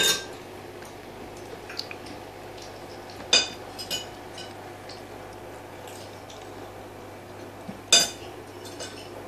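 Aquarium with air bubbles streaming: a steady low hum and faint bubbling, broken by sharp glassy clinks, one at the start, one about three and a half seconds in with a smaller one just after, and one about eight seconds in.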